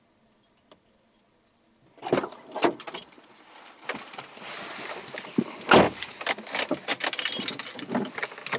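A car's driver door is unlatched and opened about two seconds in, and a person climbs into the driver's seat, with rustling, clicks and keys jangling. A heavy thump about six seconds in is the door being shut.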